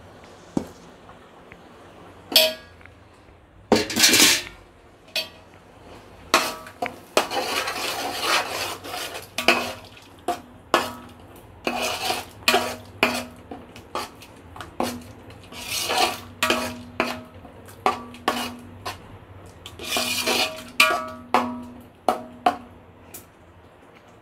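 A ladle stirring a thick chicken gravy in a large metal pot, with repeated scrapes and ringing knocks against the pot's side. The strokes start about two seconds in and come irregularly, roughly one or two a second, until near the end.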